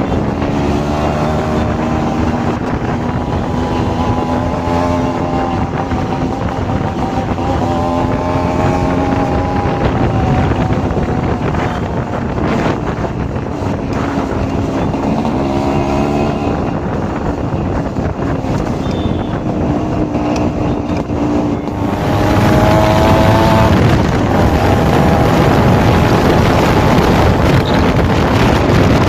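Yamaha RX135 two-stroke single-cylinder motorcycle exhaust running on the move, its pitch rising and falling with the throttle several times. Heavy wind noise on the microphone throughout, growing louder about three quarters of the way through.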